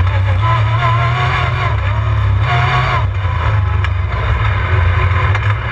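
Sport side-by-side UTV engine running steadily under way, heard from inside the open cab.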